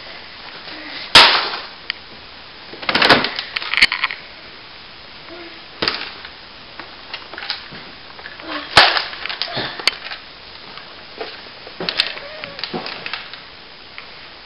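A string of sharp clacks and bangs at irregular intervals, the loudest about a second in and another near nine seconds, from a plastic toy blaster being handled and fired, with rustling handling noise between.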